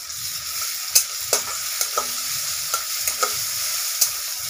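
Onions and ginger-garlic paste sizzling in hot oil in a wok, stirred with a metal spatula that clinks and scrapes against the pan about six times.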